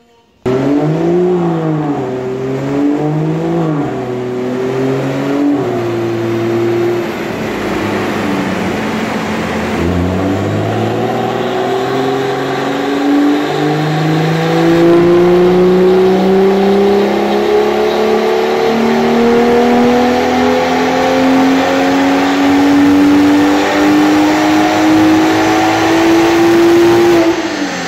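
BMW M2's N55 turbocharged straight-six breathing through a Scorpion turbo-back exhaust, on a rolling-road dyno power run testing its Stage 2 map. The revs rise and fall a few times, dip about ten seconds in, then climb in one long full-throttle pull for about fourteen seconds before dropping away near the end.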